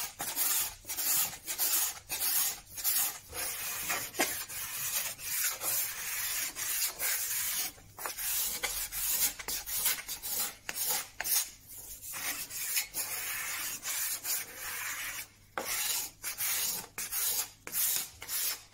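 Hand plane shaving wood in quick repeated strokes, about two a second, with a short pause about two-thirds of the way through. It is taking down a spot where a sliding wooden panel is still too tight.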